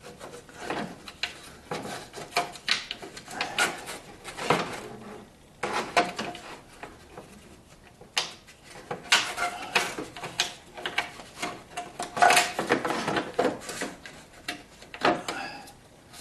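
Parking light and turn signal assembly being worked into place behind a car's grille vent: irregular clicks, knocks, rattles and rubbing as the parts are pushed and jiggled to line up a screw hole, busiest about two-thirds of the way through, with a sharp knock near the end.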